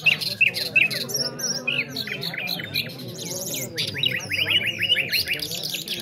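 Several caged nightingales singing at once in overlapping chirps, whistles and trills, with a fast run of repeated notes about two-thirds of the way through, over a low murmur of men's voices.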